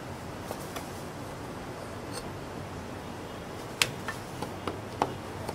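A Chinese cleaver knocking sharply on a round wooden chopping block as roast meat is cut: a few faint clicks, then one loud knock near the middle followed by a quick run of lighter ones, over a steady background hum.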